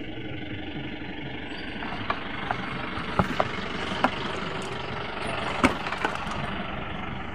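Steady engine-like rumble in the background, with a handful of short sharp clicks and taps from clutch parts and their cardboard box being handled, the loudest a little before six seconds in.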